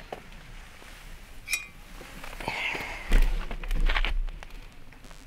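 A stainless steel sierra cup is lifted off its hook on a metal hanging rail and clinks once with a brief ring about a second and a half in. This is followed by rustling, a low rumble and a few soft knocks as it is handled.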